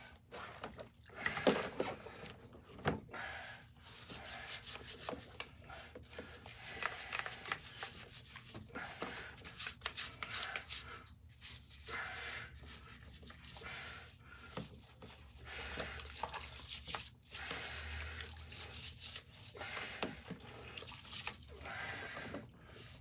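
Stiff brush scrubbing a greasy engine part during washing, in quick, irregular strokes that come in runs with short pauses.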